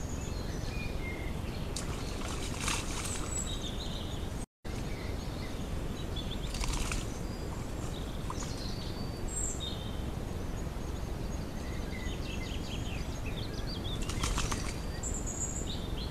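Wild boar wallowing in a muddy pool: three short bursts of splashing and rustling over the camera trap's steady background hiss, with high bird chirps scattered throughout. The sound cuts out completely for a moment about four and a half seconds in.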